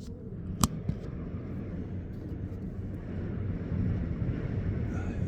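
Strong wind buffeting the phone's microphone, a steady low rumble that swells a little past the middle. About half a second in there is one sharp tap as the phone is propped in place.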